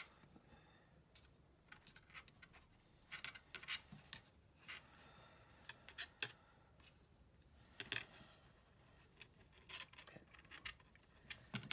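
Faint handling sounds: scattered small clicks, scratches and rustles of fingers working a metal finger ring and wire loop and wrapping it with tape, as a temporary fix on a puppet eye mechanism.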